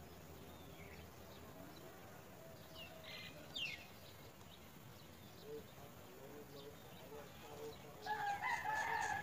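Quiet outdoor ambience with a few brief high bird chirps, then a louder drawn-out bird call from about eight seconds in, the loudest sound.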